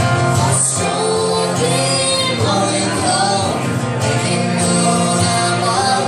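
Live band music: a woman sings into a microphone over guitar accompaniment, with held notes that slide in pitch.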